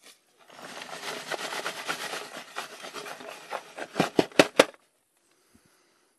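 Scraping and rubbing in dry dirt while bedding a freshly set dog trap, then four quick sharp knocks just after the scraping stops.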